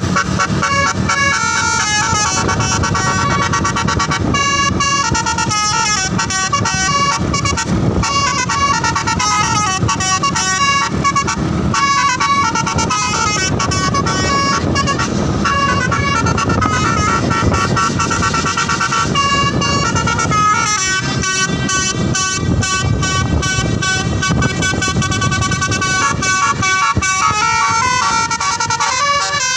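Bus telolet horn: a tour bus's multi-trumpet musical horn playing a fast melody, note after note, without a break. Engine noise sits underneath.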